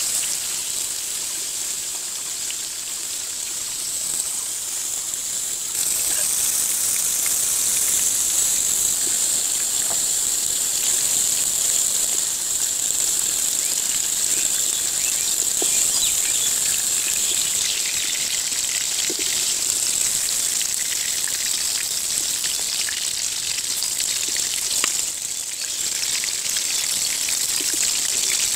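Pointed gourds sizzling steadily as they fry in hot oil in a steel wok. The sizzle grows louder about six seconds in.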